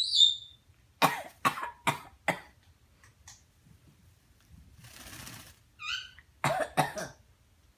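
A pet coughing: four short, sharp coughs in quick succession, then a brief hiss and a short high-pitched call, and two more coughs near the end.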